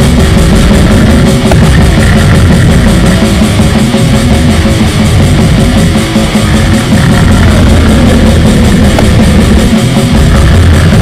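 Loud, dense heavy metal music: electric guitars and drums packed into an unbroken wall of sound.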